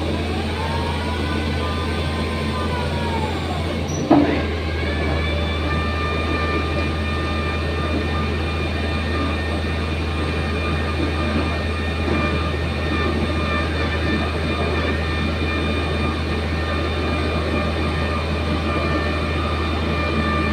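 Excavator running with a steady low drone and a whine. The whine rises and falls in pitch over the first few seconds. There is a knock about four seconds in, and after that the whine holds steady.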